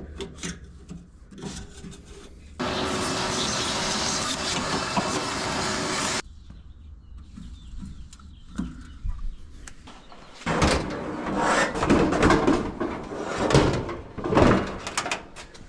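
A vacuum cleaner runs for about three and a half seconds and cuts off suddenly. Later comes irregular clattering and rattling from the dryer's squirrel-cage blower wheel, coins loose in its fins knocking about.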